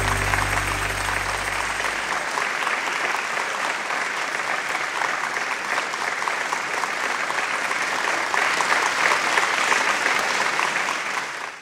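Crowd applauding, a dense, steady clatter of many hands clapping that cuts off abruptly at the end.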